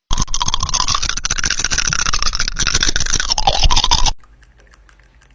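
Loud, harsh scraping noise made of rapid clicks, lasting about four seconds and cutting off suddenly.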